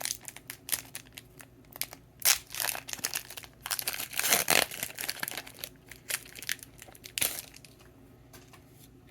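Pokémon booster pack's foil wrapper being torn open and crinkled in the hands, an irregular crackling with the loudest rips about two and four and a half seconds in. It gets quieter near the end.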